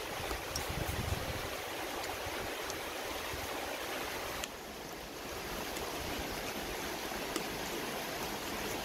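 A steady rushing noise throughout, with a few faint light clicks of a metal spoon against a ceramic plate.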